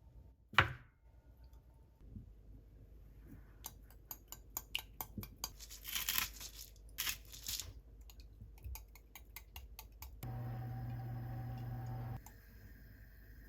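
Kitchen handling sounds: a sharp knock, then a run of small clicks and rustling, tearing sounds like a package being opened, then a steady low hum for about two seconds that stops abruptly.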